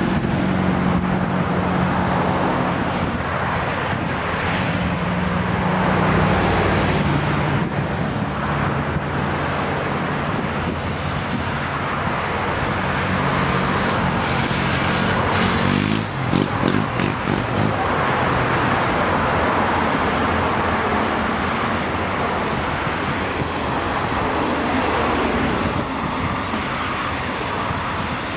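Road traffic: a motor vehicle's engine hum holds steady for the first half, then a vehicle passes close by about halfway through, followed by a steady rush of traffic noise.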